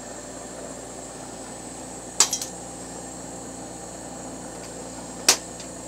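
Glass and metal tools clinking against each other on a cluttered glassblowing bench: a quick cluster of clinks about two seconds in and a single sharp clink near the end, over a steady background hum.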